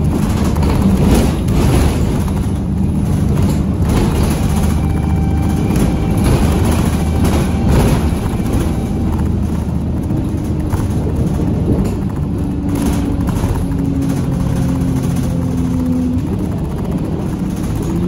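City bus engine running under way with its turbocharger whine, heard from inside the passenger cabin, with road noise and occasional knocks and rattles. In the second half the engine note climbs in steps as the bus pulls away and accelerates.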